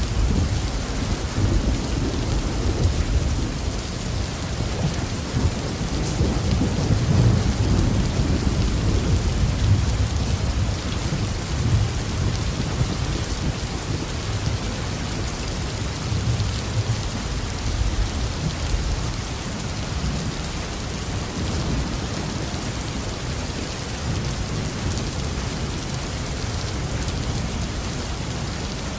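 Heavy rain falling steadily, with deep thunder rumbling under it. The rumble swells a few seconds in and eases off in the second half.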